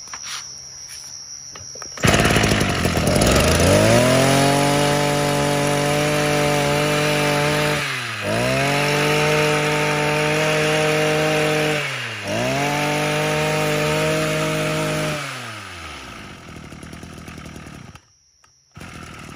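Maruyama MB3030 brush cutter's 30cc two-stroke engine revving. It comes in suddenly and climbs to full throttle, is held there, and is eased off and opened up again twice. Near the end it drops back to idle and then cuts off.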